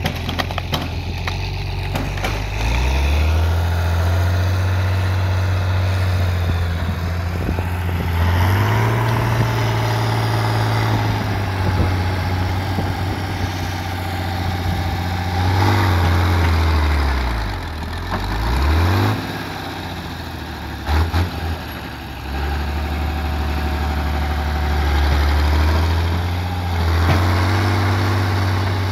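Renault 981-4 tractor's diesel engine working under heavy load, its revs rising, sagging and recovering as it strains to pull a tree over. About two-thirds of the way through, the revs drop and climb back sharply a couple of times.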